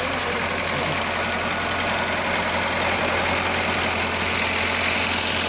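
DT-75 crawler tractor's diesel engine running steadily, just brought back to life after standing unused for fourteen years, running on fourteen-year-old diesel and without coolant in it.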